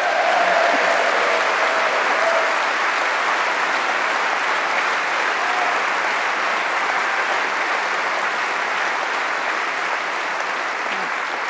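A large conference-hall audience applauding steadily, easing off slightly near the end.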